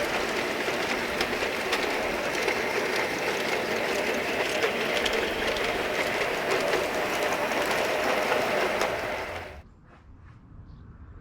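G gauge model train running along garden track, its wheels clicking over the rails; the sound cuts off abruptly near the end.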